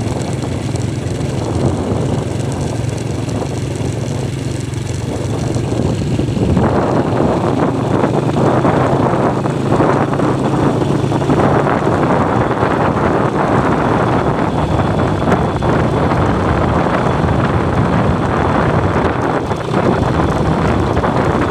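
Vehicle engine humming steadily while driving, with road and wind noise that grows louder about six and a half seconds in as it picks up speed.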